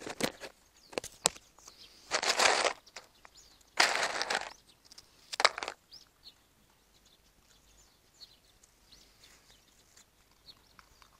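A handful of short rustling bursts in the first half, then a quieter stretch with faint, high bird chirps.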